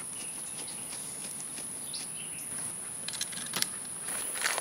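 Steady high-pitched chorus of insects buzzing, with a few faint clicks or snaps near the end.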